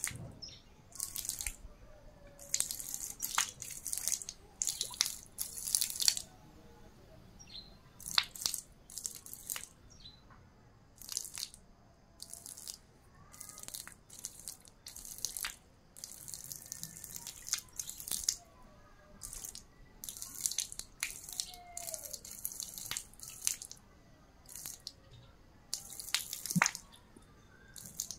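Thin stream of water from a black plastic pipe splashing and dripping onto wet concrete in irregular bursts.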